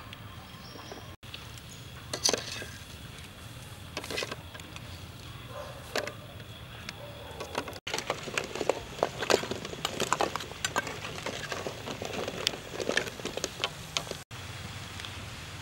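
A few separate knocks as eggs are set into a large aluminium pot of water, then a metal ladle clinking and scraping against the pot and the eggs as they are stirred and lifted out of the hot water, with many quick clicks from about halfway through.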